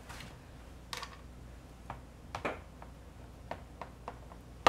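Sharp kitchen knife cutting through rolled dough and tapping on the metal baking sheet beneath: scattered light ticks and clicks, with a louder click at the very end.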